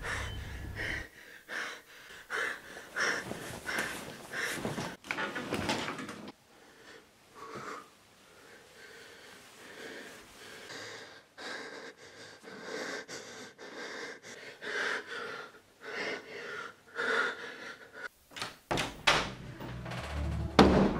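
A man's heavy, wheezing breaths, gasped in and out in short irregular bursts, with a quieter stretch in the middle.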